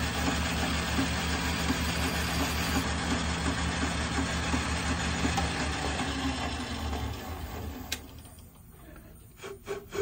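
Manual Logan metal lathe running with a steady hum and a low, even pulse from the spinning spindle and chuck. It then winds down and stops about three-quarters of the way through, followed by a sharp click and a few light knocks.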